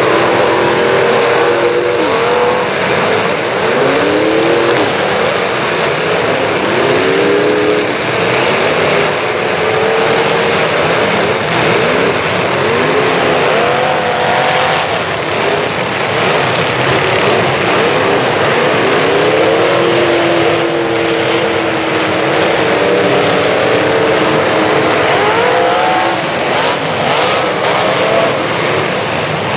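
Many full-size demolition derby cars running at once, their engines repeatedly revving up and dropping back as they drive and ram one another, with a few knocks of collisions among them.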